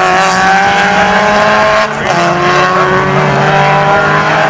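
Racing touring car engines at full throttle accelerating out of a corner, the pitch rising. There is a brief break and drop in pitch about two seconds in, an upshift, then the revs climb again.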